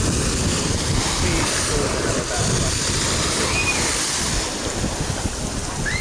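Wind buffeting the microphone over the steady wash of sea waves, with a few faint distant voices calling.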